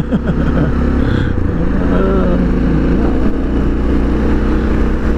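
Suzuki DR650's single-cylinder engine running through an FMF aftermarket pipe and silencer while the bike cruises along, a mostly steady engine note that shifts slightly about a second in.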